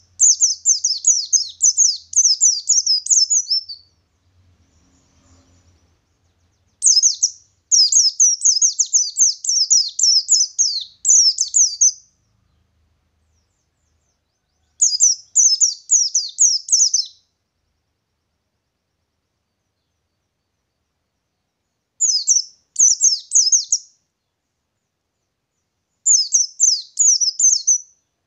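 Pleci ngalas white-eye singing its rapid rolling song: high, quick-fire chirping phrases of sharp downward-sweeping notes, five phrases of about two to five seconds each, separated by pauses of a few seconds.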